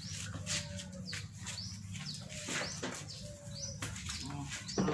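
Birds chirping in many short, quick calls, with a steady low hum underneath.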